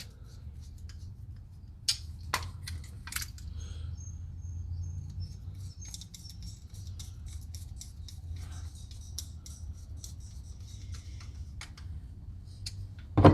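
Small metal carburetor parts clicking, tapping and scraping as they are handled and fitted together by hand, with a few sharper clicks early on and a brief thin squeak of metal rubbing, over a low steady hum.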